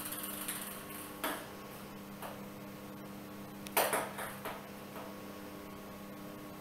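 A kittens' toy ball knocking and clattering on a hard tile floor: a few sharp clinks, the loudest about four seconds in.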